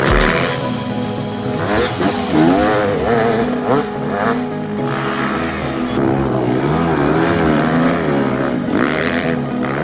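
Dirt bike engines, a Kawasaki KX250F four-stroke and a Beta RR300 two-stroke, revving up and down over and over, with background music.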